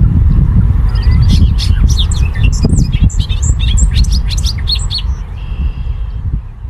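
Male bobolink singing a rapid, bubbling jumble of varied high notes that lasts about four seconds and ends about five seconds in. A loud, steady low rumble runs underneath.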